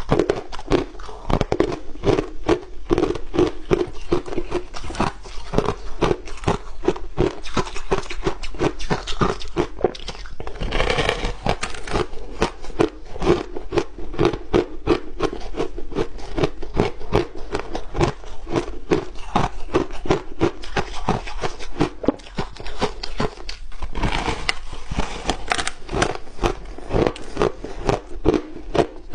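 Blue frozen ice being bitten and chewed close to a clip-on microphone: a fast, continuous run of crisp crunches and crackles, with a short lull near the end.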